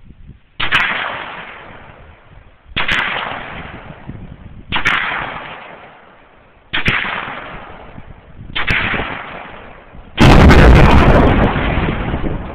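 Five gunshots about two seconds apart, each followed by a long echoing tail, then a much louder, longer blast near the end.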